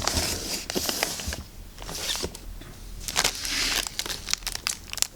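Handling noise from firework cake boxes being picked up and moved: bursts of cardboard and packaging rustling and scraping, with scattered clicks and light knocks.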